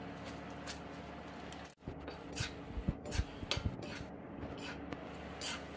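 A metal spoon clinking and scraping in an iron kadai while stirring broken cashews frying in ghee: a scatter of short clicks over a steady low hum.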